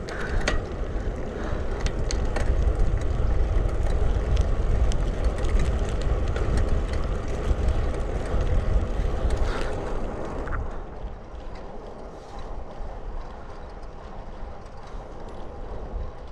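Wind rushing over the microphone together with a bicycle's tyres rolling, loud for about ten seconds and then dropping off noticeably, with a few sharp clicks along the way.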